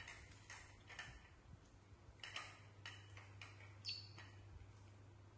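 Faint scattered clicks and taps of young macaques picking food off plastic plates and eating, about eight in all, with one short high squeak about four seconds in, over a low steady hum.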